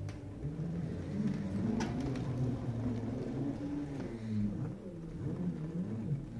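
Self-balancing hoverboard's hub motors humming as it is ridden and turned, the low hum wavering up and down in pitch, with a sharp click about two seconds in.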